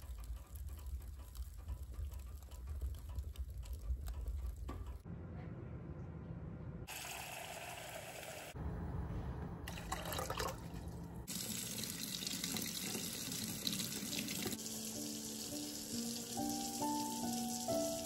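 A wood fire burning in an open wood stove, with a low rumble and scattered crackles. After about five seconds comes water running into a stainless steel saucepan, with white vinegar poured into the water about ten seconds in. Soft piano music comes in near the end.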